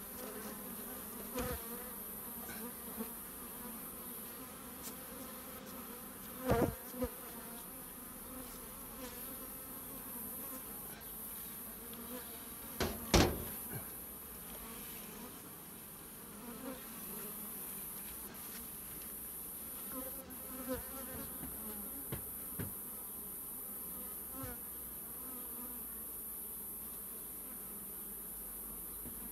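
Carpathian honey bees buzzing steadily in a dense, wavering hum around a hive opened for inspection, with a few sharp knocks, the loudest about thirteen seconds in.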